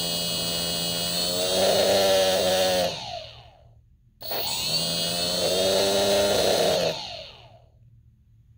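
A DIY centrifuge's 1500KV brushless outrunner motor spinning a 3D-printed tube rotor, a high electronic whine over a hum. It gets louder about a second and a half in, then winds down to a stop with falling pitch about three seconds in. It starts again abruptly about four seconds in, runs, and winds down once more near the end.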